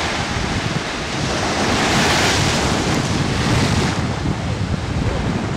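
Ocean surf breaking and washing up a sandy beach, swelling louder for a couple of seconds in the middle, with wind buffeting the microphone.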